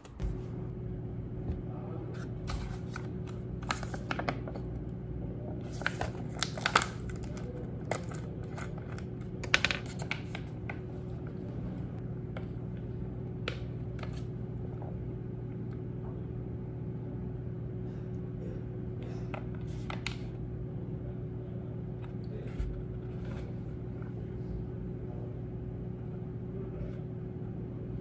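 Steady low hum of room ambience, with scattered clicks, taps and rustling from handling things.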